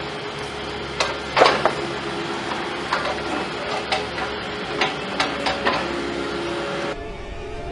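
Heavy machinery running steadily, with a string of sharp metallic knocks and clanks, the loudest about a second and a half in.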